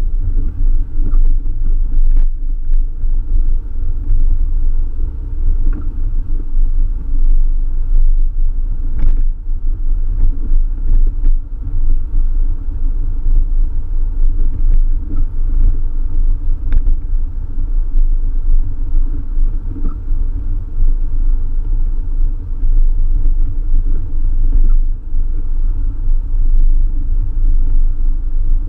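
Suzuki Jimny driving on a wet road, heard from inside the cabin: a steady low rumble of engine and tyres, with a few faint knocks.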